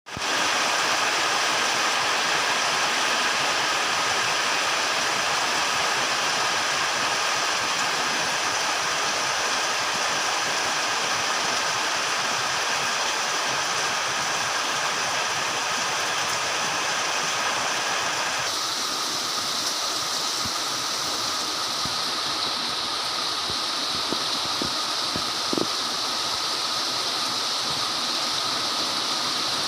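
Very heavy, torrential rain pouring down in a steady, dense hiss. The sound changes abruptly about two-thirds of the way through, and there is one brief tap a few seconds later.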